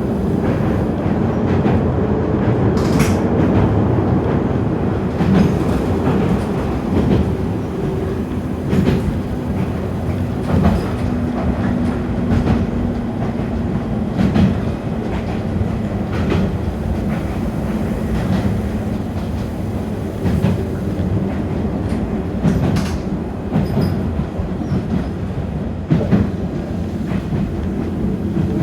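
Toyama Chitetsu 10030-series electric train running at speed, heard from inside the car: a steady running noise with a constant motor hum, and the wheels clacking over rail joints every couple of seconds at uneven intervals.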